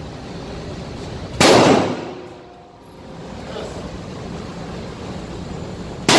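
Turkish-made 9mm pistol firing one shot about a second and a half in, its report ringing in the indoor range's concrete lane. A second shot comes right at the end.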